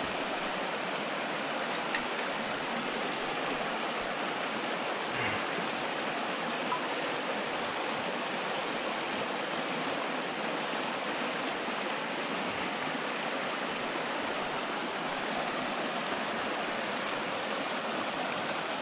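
Small mountain stream flowing, a steady, even rush of moving water.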